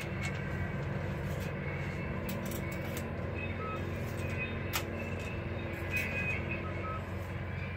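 Steady low hum of an idling vehicle engine, with a single sharp click nearly five seconds in.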